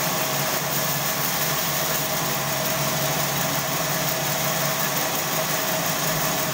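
Sawmill machinery running steadily: an even motor drone with a constant hum, no knocks or changes.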